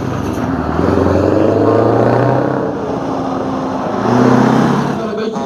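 Scania 143H 450 truck's V8 diesel engine pulling away. Its note rises, drops about two and a half seconds in, then rises again.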